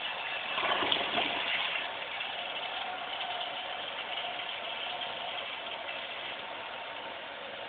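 Crane Hymont toilet flushing: a surge of water about a second in, then water running steadily as the bowl drains and the toilet refills.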